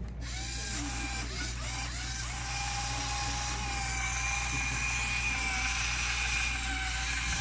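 LEGO Mindstorms NXT servo motors whirring through their gears as the robot drives. They start and stop in short spurts at first, then run in a steady whine from about two and a half seconds in.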